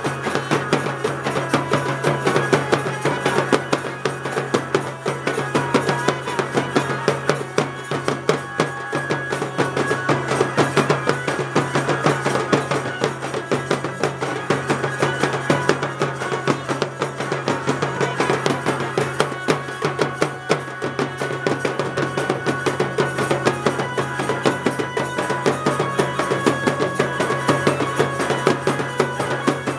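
Tasa-party street band playing: fast, dense drumming with brass and clarinet carrying a melody over it, loud and unbroken.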